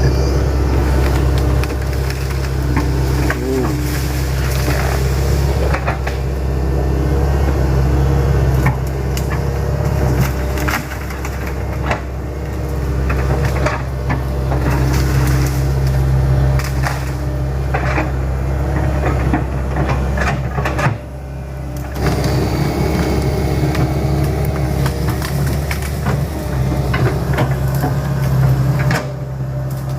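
Hitachi Zaxis 110 excavator's diesel engine running steadily under work, with repeated sharp cracks and snaps of wood as trees and brush are broken and pushed aside.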